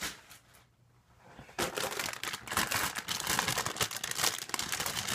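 Clear plastic bag of plastic model-kit runners crinkling as it is handled and set down, starting about a second and a half in after a short near-silent pause.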